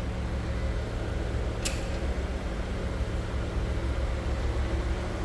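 Steady low hum with a single sharp click about a second and a half in.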